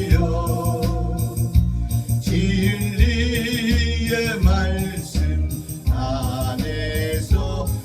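A gospel song: a solo voice singing long, sustained lines over a backing track with a bass and a shaker-like rhythm.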